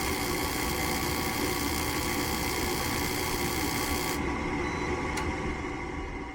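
Gas furnace running on a heat call: a steady mechanical whir with a hum of several steady tones. The high hiss drops away abruptly about four seconds in.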